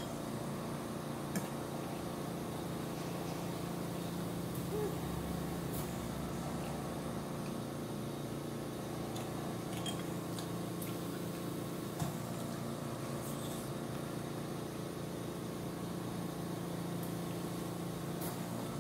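A steady machine hum made of several level tones. Over it come a few short, sharp clicks of a metal fork against a ceramic bowl, the clearest about twelve seconds in.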